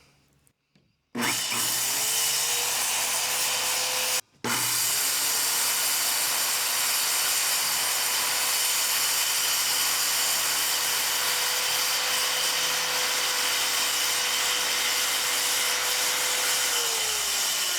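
Circular saw cutting through a plywood sheet: the motor spins up about a second in, runs steadily through the cut with a brief cut-out near four seconds, and winds down with a falling tone near the end.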